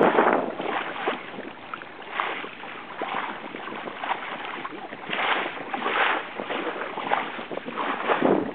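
Water rushing and splashing along the hull of a Soling keelboat under sail, swelling in irregular surges as the bow meets the waves, with wind buffeting the microphone.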